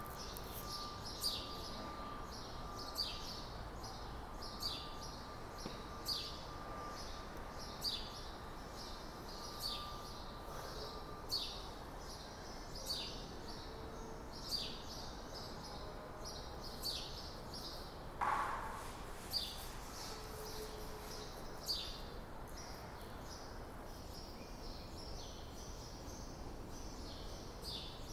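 A bird's short falling chirp, repeated steadily about every second and a half over the station's background hum. A brief, louder noise comes about two-thirds of the way through.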